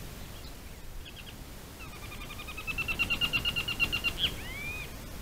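A bird calling: a few short high notes, then a rapid chattering run of evenly repeated notes for about two seconds, ending in one upward-slurred note.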